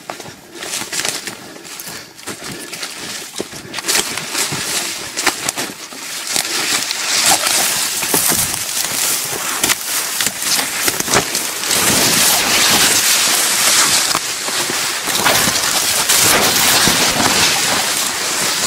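Fern, scrub and long grass swishing and crackling against the body and camera as someone pushes quickly through dense undergrowth on foot, with footfalls mixed in. It grows louder and busier about a third of the way in.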